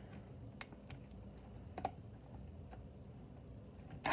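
A few sparse, light clicks and taps from working loose the screws in the plastic base of an animatronic devil prop, with a louder cluster of clicks near the end.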